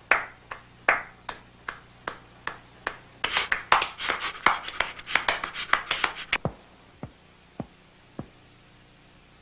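Hand clapping: single claps at an even beat, then a quick burst of many claps, then a few last claps that thin out and stop.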